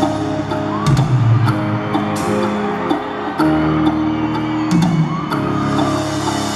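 Live pop concert music played over an arena's PA system and heard from the stands, with deep bass notes changing about every second and light percussion clicks.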